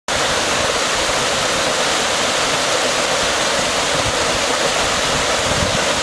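Small mountain waterfall cascading over rocks: a steady, loud rush of falling water.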